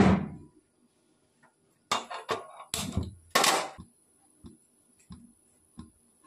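Kitchen dish clatter: a sharp knock with a brief ring at the start, then a run of clinks and scrapes of a metal spoon against a dish as filling is scooped onto bread, followed by a few soft taps.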